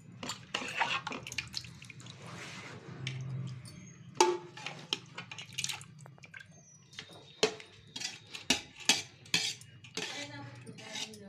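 Metal spoon clinking and scraping irregularly against a large aluminium pot and colander as drained rice is spooned over chicken to layer a biryani.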